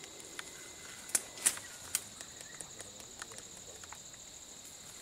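Quiet outdoor ambience with a steady high insect drone, broken by a few sharp clicks and taps of small equipment being handled, the clearest ones between one and two seconds in.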